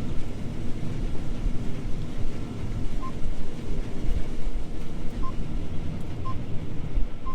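Steady low drone of a John Deere T670i combine heard from inside its cab, with a few short, high beeps at uneven intervals.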